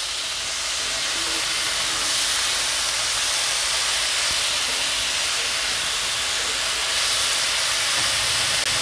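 Diced raw chicken sizzling in a hot frying pan as the pieces go in: a steady hiss, getting a little louder as more chicken hits the pan. The kitchen extractor hood fan runs underneath.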